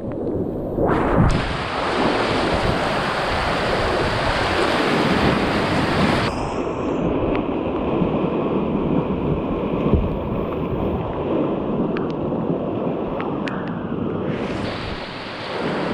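Whitewater rushing in a river rapid, a steady loud roar with wind buffeting the microphone; about six seconds in the sound turns duller.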